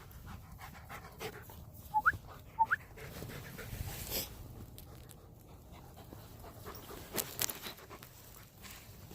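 Dog panting, with two brief high rising whines about two seconds in, and scattered crunching steps in snow.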